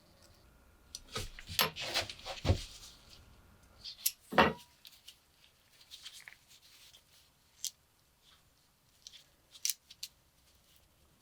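Small metal parts of a lighter clicking and scraping as they are handled, busiest in the first few seconds, with one sharp click about four and a half seconds in and a few light ticks after.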